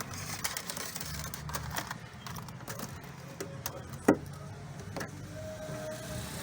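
Scattered light clicks and knocks of hand work on car trim and wiring, with one sharp click about four seconds in, over a low steady hum.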